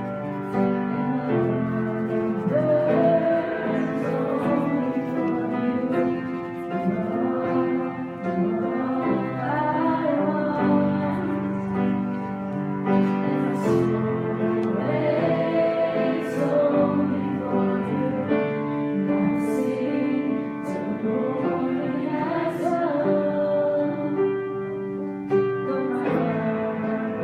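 Worship song played on piano with singing voices, steady and unbroken.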